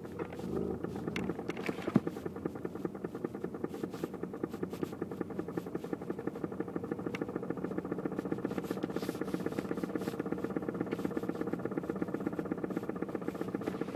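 2006 BMW E90 six-speed manual sedan reversing, with a rapid, regular clicking over the steady engine run; one sharper click about two seconds in.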